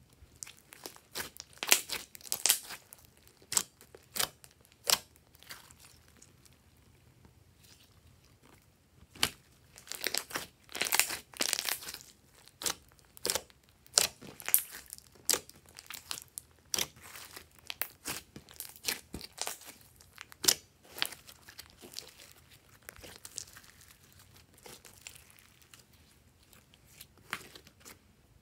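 Glossy purple slime being stretched, pulled and pressed by hand, giving irregular sticky crackles and pops as air pockets in it burst, with a few seconds' lull about a third of the way in.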